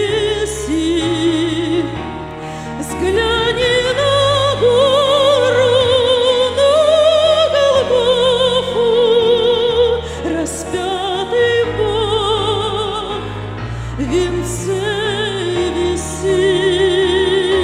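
A woman singing a Christian song in an operatic style, holding long notes with wide vibrato over an instrumental backing with sustained bass notes. The melody climbs to its highest notes about halfway through, then settles back on a long held note near the end.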